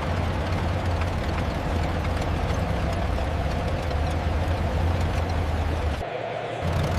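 Engine idling steadily, a low even hum, with a brief dip about six seconds in.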